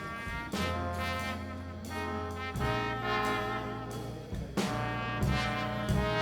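Background music: a jazzy, brass-led tune, with melody notes changing every second or so over long held bass notes.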